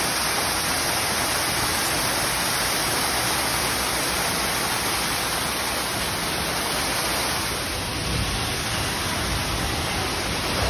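Steady rushing and splashing of water falling down a rock-wall waterfall. A deeper rumble joins near the end.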